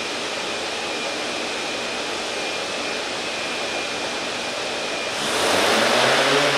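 DJI Inspire quadcopter's motors and propellers spinning at idle with a steady high whine, then spooling up much louder about five seconds in, with a low hum added, as it throttles up for take-off.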